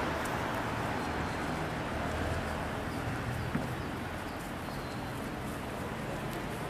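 Steady outdoor street ambience: an even background noise with a faint low hum and a few faint clicks.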